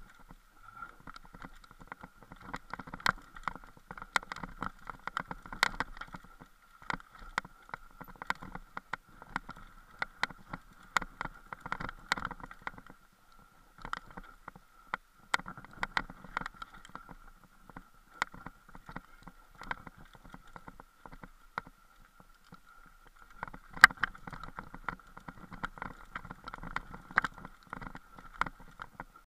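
Mountain bike rolling down a rocky dirt trail, heard from a camera riding on the bike or rider: frequent clattering knocks and rattles as it hits stones, over a steady high-pitched buzz, with a couple of smoother, quieter stretches and one sharp bang about 24 seconds in.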